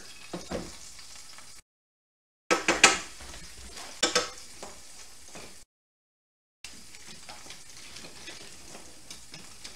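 Hot butter sizzling steadily in a frying pan, with a few sharp clatters of a utensil against the cookware about two and a half and four seconds in. The sound cuts out completely twice for about a second.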